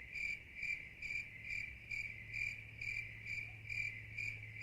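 An insect chirping in a steady, even rhythm of a little over two high-pitched pulses a second, over a faint low hum.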